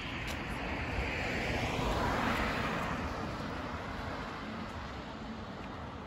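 A car passing on the road, its tyre and engine noise swelling to its loudest about two seconds in and then fading away.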